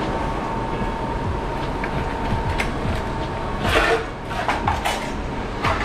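Loaded hand truck rolling across a tiled floor, its wheels rumbling and rattling over the tiles, with a few louder clatters of the load a little past the middle and near the end.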